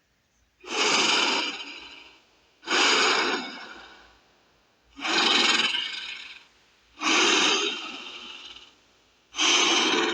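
Saurophaganax dinosaur creature sound effect: five hoarse, breathy calls about two seconds apart, each starting suddenly and trailing off.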